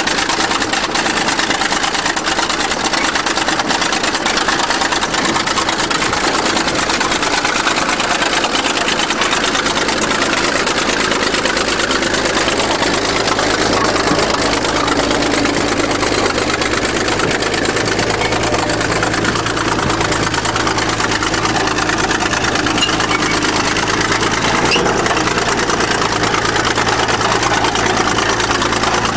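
20-ton bulldozer's diesel engine running steadily as the machine is driven in reverse over a wrecked car, its low hum growing stronger about halfway through.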